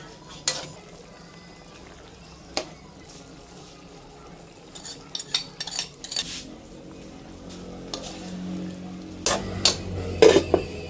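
A metal utensil clinking and scraping against a cooking pan while food is stirred: a few scattered clinks, a quick cluster about five to six seconds in, and the loudest knocks near the end, over a steady low hum.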